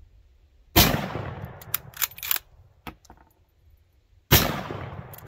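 Two shots from a Mosin-Nagant bolt-action rifle in 7.62×54R, about three and a half seconds apart, each followed by a long echo. Between the shots the bolt is worked, a run of metallic clicks and clacks.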